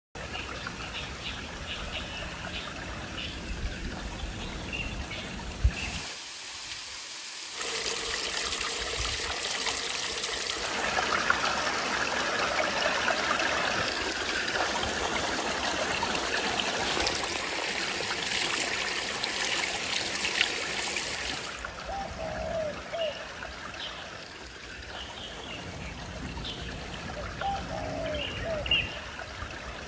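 Mountain stream water running and trickling, its rush growing louder and brighter for a stretch in the middle. A few short bird chirps come in near the end.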